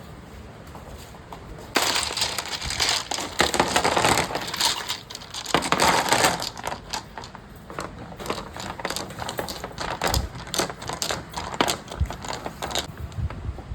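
Many small hard items clattering and crackling together. It starts suddenly about two seconds in as a dense rush, then thins into scattered sharp clicks and stops near the end.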